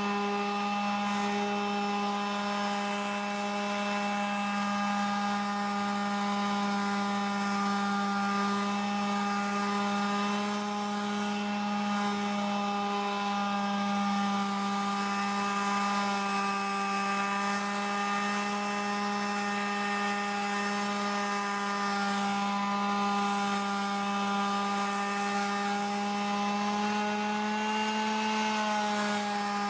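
Porter Cable 380 quarter-sheet palm orbital finish sander, with a 2-amp motor at 13,500 orbits per minute, running steadily while sanding a weathered wooden deck rail: an even, pitched motor hum. The pitch dips slightly near the end.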